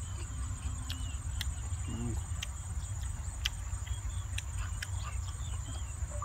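Close-up chewing of boiled chicken, with scattered small mouth clicks and smacks. Behind it, a steady high-pitched hum, typical of field insects, and a constant low rumble.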